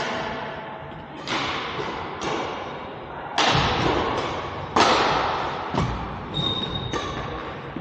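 Badminton rally: rackets striking the shuttlecock about six times, roughly a second apart, each hit echoing in a large hall. The hits grow louder from about halfway through.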